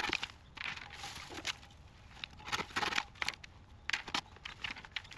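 Dry cut bamboo canes and their leafy branches rustling and crunching as they are handled, in irregular short bursts.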